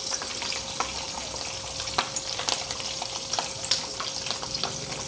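Slabs of paneer shallow-frying in hot oil in a pan: a steady sizzle full of small irregular pops and crackles.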